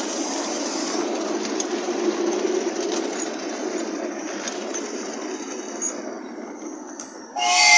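Ride-on miniature railway train running along its track, a steady rumble of small wheels on the rails that fades as it slows. Near the end a short, loud toot sounds.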